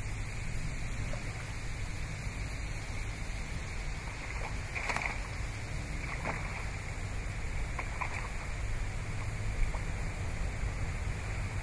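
Wind buffeting the microphone: a steady low rumble with hiss, with a few faint brief knocks or scrapes now and then.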